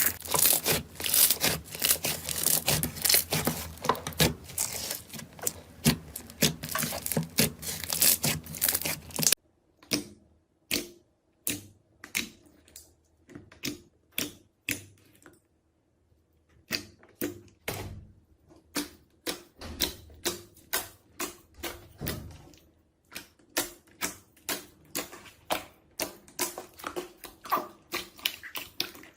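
Slime being squeezed and poked, with dense crackling for about the first nine seconds, then a sudden change to separate sharp pops or clicks, about one or two a second.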